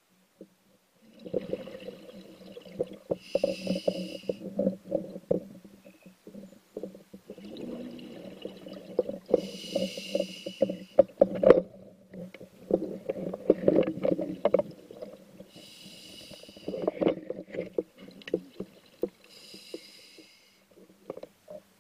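A scuba diver breathing through a regulator underwater. A short hissing inhalation comes four times, and each is followed by a long, crackling rush of exhaled bubbles.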